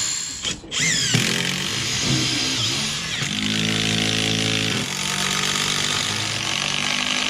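Cordless drill-driver running in long bursts, driving screws through a wooden block into a boat's wooden bulwark. The motor briefly drops out about half a second in, then runs on with a steady hum through the middle.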